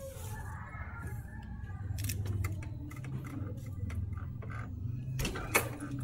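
Light metallic clicks and clinks from small metal parts being handled during an oil change, over a steady low hum, with a sharper click about five and a half seconds in.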